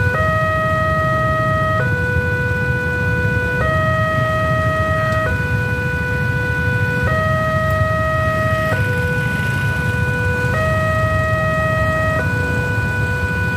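Level crossing warning alarm sounding a two-tone electronic signal. It alternates between a higher and a lower tone, each held for nearly two seconds, with a steady low rumble underneath. It signals that a train is approaching and the barrier is down.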